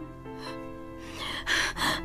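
Soft background music with sustained chords, and a person's two sharp gasping breaths about a second and a half in and near the end.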